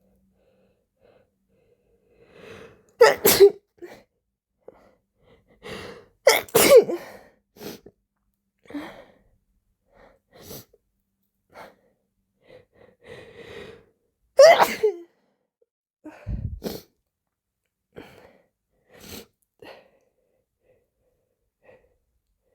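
A person sneezing hard and repeatedly: three loud sneezes, a few seconds and about six and fourteen seconds in, with quieter short sounds between them and a softer burst soon after the last.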